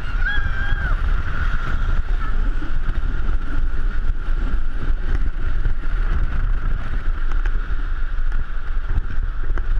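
Wind buffeting a GoPro's microphone on the roof of a moving jeepney, with the jeepney's engine and road noise rumbling underneath and a steady high whine.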